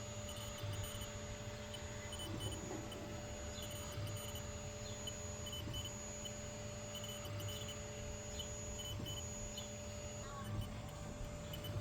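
Sculpfun S9 diode laser engraver at work: a steady hum under short, stop-start high-pitched motor whines as the head moves.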